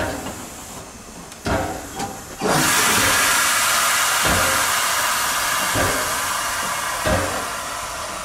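Eb 3/5 steam locomotive letting off a loud rush of steam that starts suddenly about two and a half seconds in and slowly fades, while it moves off slowly. Low thuds come every second or so underneath the hiss.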